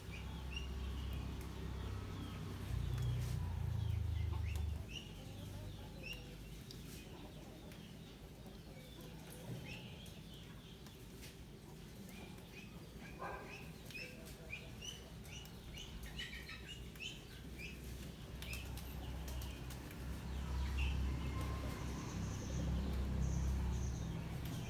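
Many poultry chicks cheeping: a dense run of short, high chirps throughout, with a low rumble near the start and again near the end.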